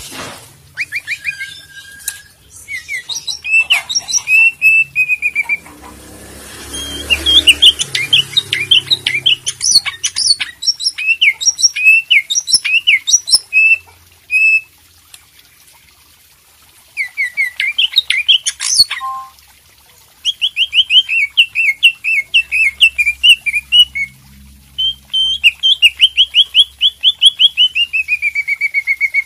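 Caged green leafbird (cucak ijo) singing in full voice: phrases of rapid, repeated whistled chirps with short pauses between them, the last phrase ending in a downward slur near the end.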